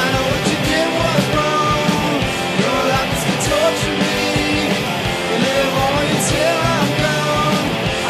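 Rock music soundtrack with guitars and a steady drum beat.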